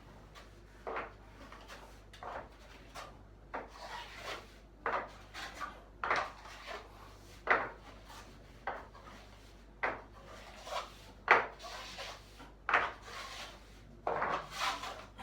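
Hand tool scraping a cracked ceiling being repaired with joint filler, in about a dozen short, irregular strokes roughly one a second.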